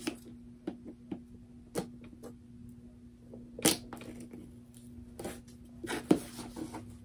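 Scissors cutting open packaging: a string of separate snips and crinkles, the loudest about three and a half seconds in, over a faint steady hum.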